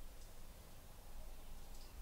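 Faint scattered ticks and pops from rust-removal solution foaming on a rusted steel blade, over a low steady rumble.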